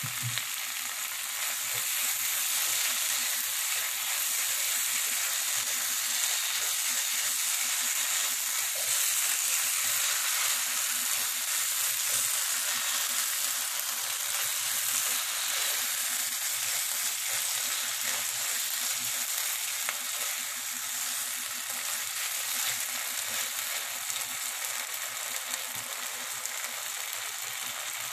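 Bean and vegetable mixture sizzling in a nonstick frying pan over a gas flame, with a steady frying hiss, while it is stirred with a silicone spatula.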